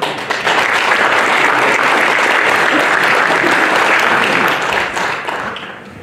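Audience applauding: the clapping swells quickly at the start, holds steady, then fades away over the last second or so.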